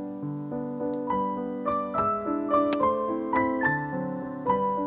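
Background piano music: a melody of quick notes moving over held lower notes.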